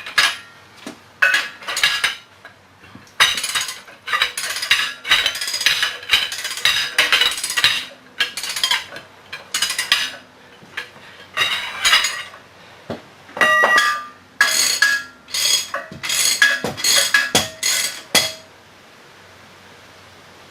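Irregular metal clanks and knocks from steel jackshaft parts being struck and handled, a few hits ringing briefly. They stop about two seconds before the end, leaving a faint steady hiss.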